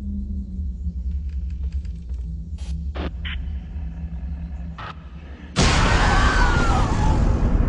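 Horror-trailer sound design: a steady low drone with a few scattered sharp knocks, then a sudden loud burst of noise about two thirds of the way in that stays loud, with a high wavering cry like a scream inside it.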